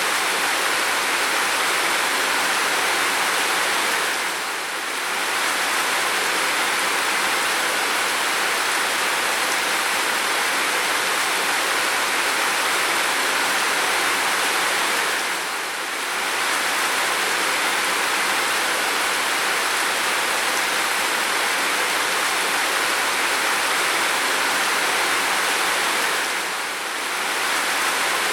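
Steady heavy rain, a dense even hiss with no single drops standing out, dipping slightly in level three times, about eleven seconds apart.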